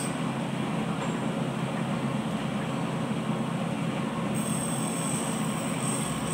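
Steady low mechanical drone of running machinery, with a faint high whine that cuts out at the start and comes back about four seconds in.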